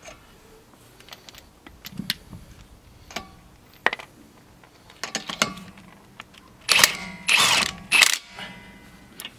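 Metal clicks and clinks of lug nuts and a socket being handled, then a cordless impact wrench runs in three short bursts, spinning lug nuts down onto the wheel studs.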